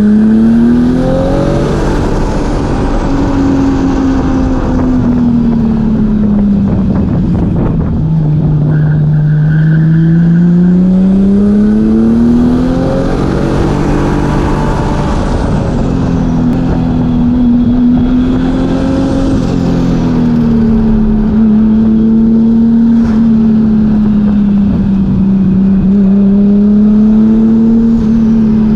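Turbocharged 2JZ-GTE straight-six in a Nissan Cefiro A31 running hard through gear changes, its note climbing, falling and climbing again over the first half. In the second half it holds fairly steady with small swells in pitch.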